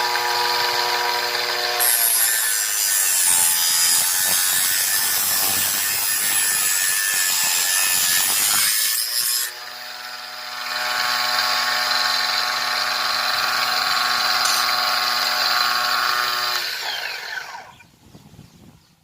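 Homemade cutting machine driven by an 895 DC motor: the blade spins with a steady whine, then cuts through material with a rough, gritty noise. After a brief lull about nine seconds in it whines and cuts again, and near the end the motor winds down to a stop with falling pitch.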